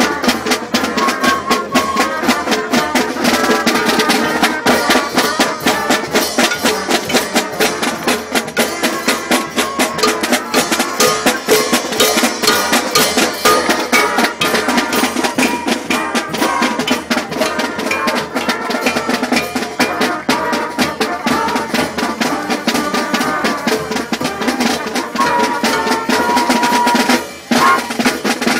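Marching band playing while on the march: flutes, trumpets and trombones over a snare and bass drum beat, heard from within the ranks of players.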